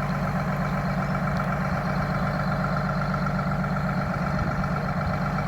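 Diesel engine of a truck-mounted drilling rig idling steadily, a constant low hum with a faint steady whine above it.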